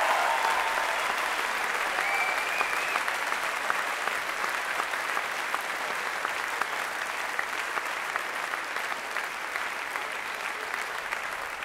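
Large theatre audience applauding, a dense even clapping that slowly fades, with a brief high-pitched tone about two seconds in.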